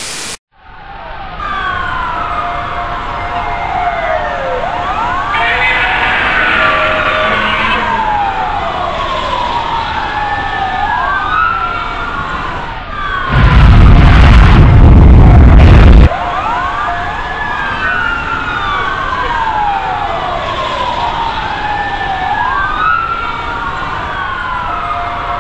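Several sirens wailing over one another, each rising and falling in pitch. About thirteen seconds in, a loud rumbling burst of noise lasting nearly three seconds drowns them out, then the sirens carry on.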